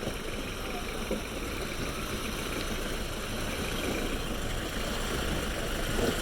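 Suzuki Samurai 4x4's engine running steadily while driving off-road, getting a little louder near the end.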